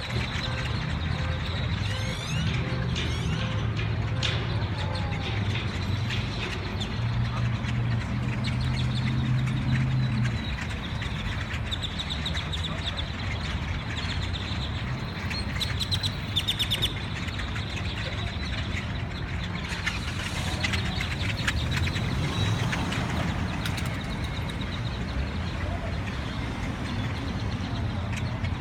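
A large flock of birds chirping and chattering over one another, with a steady low rumble of vehicles underneath.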